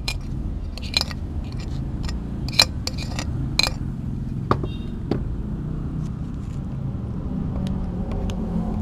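Metal spoon knocking and scraping cooked rice out of a plastic bowl onto a plastic lid: a series of sharp clicks and taps over roughly the first five seconds, then fewer. A steady low rumble runs underneath.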